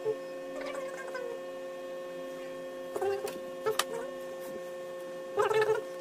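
Steady electrical hum of several tones held at once, with a few short pitched sounds breaking in around three seconds in, near four seconds and again shortly before the end.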